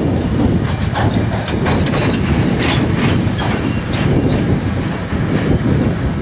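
An Alaska Railroad freight train of flatcars rolling past, with a steady low rumble. Its steel wheels click over the rail joints about two or three times a second.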